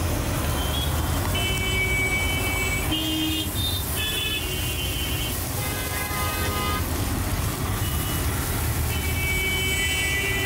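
Busy road traffic: a steady low rumble of engines, with vehicle horns honking several times, each honk held for a second or two.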